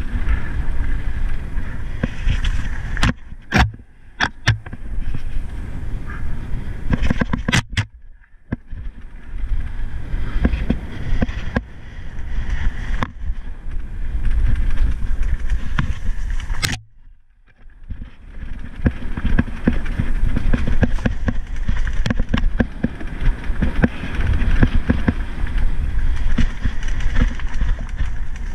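Mountain bike riding down a rocky singletrack: tyres rolling over loose stones, the bike's chain and frame rattling, with many sharp knocks from impacts, and wind noise buffeting the camera microphone. It goes briefly quieter twice, about eight and seventeen seconds in.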